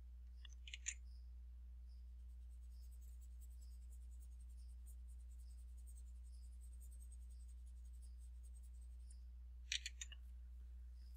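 Near silence over a steady low electrical hum, with a few faint clicks just under a second in and again about ten seconds in: a stylus tapping on a drawing tablet while on-screen annotations are erased.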